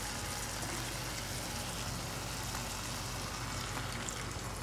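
Thick onion-tomato masala with egg halves sizzling steadily in a nonstick pan over the gas flame. Near the end, thick first-extract coconut milk is poured in from a cup.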